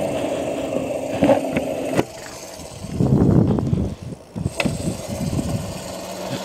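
Homemade mini bike built from a Razor E300 riding on asphalt: a steady motor hum with tyre noise, and wind buffeting the microphone, loudest about three seconds in.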